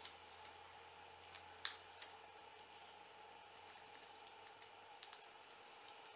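Faint handling clicks as the metal detector's coil cable is strapped to its shaft, with one sharper click about a second and a half in, over a faint steady hum.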